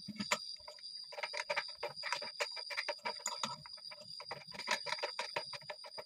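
Rapid light metallic clicking, several clicks a second, as a hand tool works the bolts on the swing waste-valve housing of a PVC hydraulic ram pump during reassembly.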